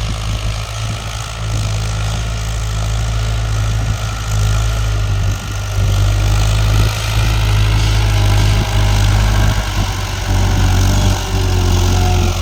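Farm tractor engine running steadily while ploughing, getting a little louder about halfway through.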